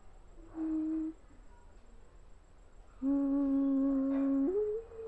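Homemade vessel flute made from a hollowed coconut shell, played: a short low hooting note about half a second in, then a long steady low note from about three seconds in that steps up to a higher note near the end. The instrument is still unfinished and untuned.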